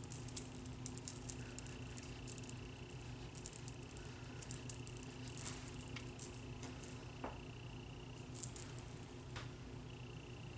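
Faint soft dabs and rustles of a makeup sponge and fingertip blending grey contour into the cheekbone, over a low electrical hum and a thin high whine that comes and goes.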